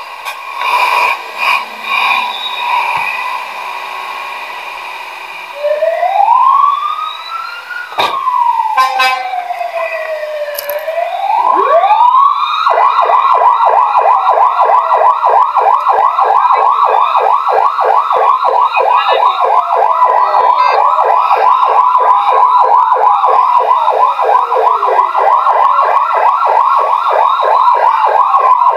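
Fire truck's electronic siren: a slow wail rising and falling in pitch twice, then from about twelve seconds in switching to a fast pulsing yelp that carries on, with a slower wail still sweeping under it.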